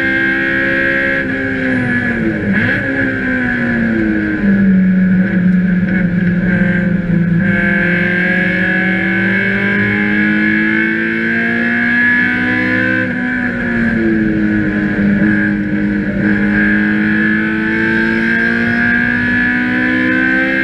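Race car engine heard from inside the cabin under racing load. Its note falls sharply about two to four seconds in as the driver brakes and shifts down for a corner, then climbs slowly under acceleration. It dips again around two-thirds of the way through and pulls back up.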